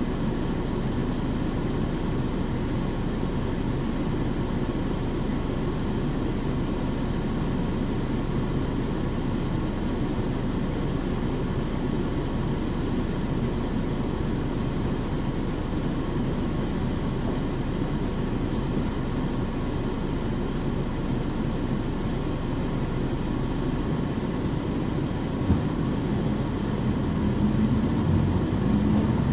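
Interior running sound of a Nissan Diesel KC-UA460HSN one-step city bus with a Fuji Heavy Industries 7E body: a steady diesel engine hum and road noise. A single click comes near the end. The engine note then rises and grows louder as the bus accelerates.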